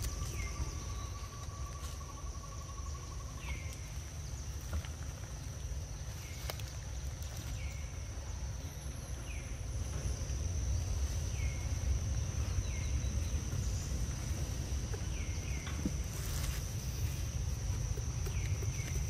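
Steady high-pitched insect drone, like a cicada or cricket chorus, over a low rumble. Short falling squeaks come every second or few.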